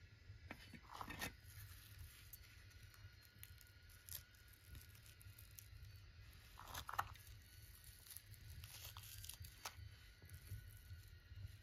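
Near silence with a few faint, short tearing or crunching sounds, about a second in and again about seven seconds in.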